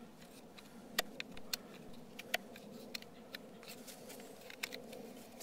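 Hoof knife paring the sole of a horse's hoof: a series of faint, irregular clicks and scrapes as the blade cuts.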